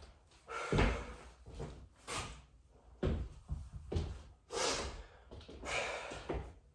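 A person exercising on the floor: a series of dull thumps roughly once a second, from hands and feet landing, with hard breathing between them.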